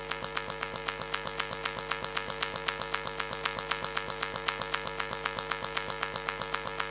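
Steady electrical hum and buzz with a fast, even clicking, several ticks a second, in the church sound system's feed: a fault in the recorded sound.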